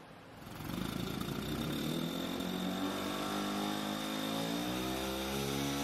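A freshly assembled Tez Raftar 200cc single-cylinder loader rickshaw engine starts about half a second in and runs on the test stand. Its revs ease down over the first few seconds and then settle to a steady idle, with a thin steady whine above the engine note.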